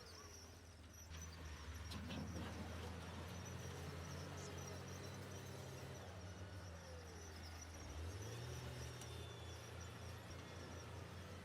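Diesel engine of heavy construction machinery running with a steady low hum, its pitch rising slightly about eight seconds in as it revs.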